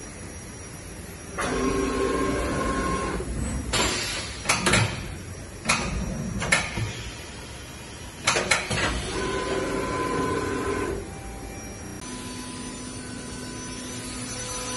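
Hurco VM10HS CNC vertical machining center's axis drives whining as the machine moves, twice for about two seconds each, with several sharp knocks in between. From about twelve seconds in, a steady machine hum with a constant pitch.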